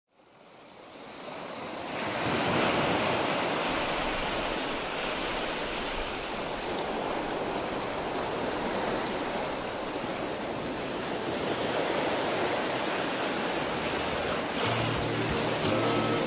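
Steady rushing noise of ocean surf, fading in over about the first two seconds. Low music notes come in near the end.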